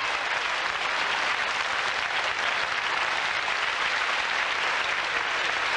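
Audience applauding steadily, a sustained round of clapping that greets a speaker's punchline at a political meeting.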